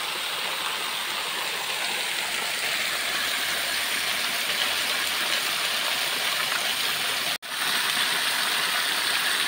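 Water gushing steadily out of a large irrigation pipe outlet and splashing down into the channel below. The sound cuts out for an instant about seven seconds in.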